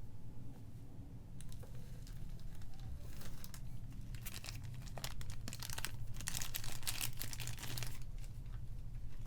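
Packaging being handled and unwrapped, a run of crinkling and crackling that grows busier toward the middle and stops near the end.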